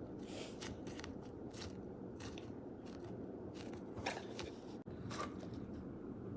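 Faint, irregular crackling and scratchy rustles from a squishy toy being squeezed and handled for ASMR.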